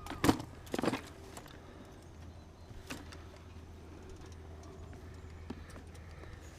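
Fishing gear handled and rattled twice in quick succession in the first second, as pliers are searched for, then a faint click about three seconds in over a steady low hum.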